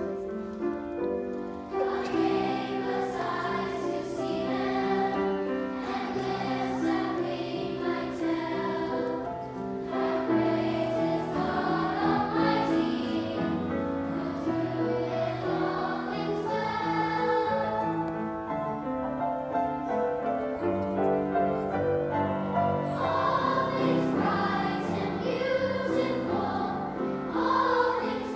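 Children's choir singing with piano accompaniment. The voices come in about two seconds in, over the piano.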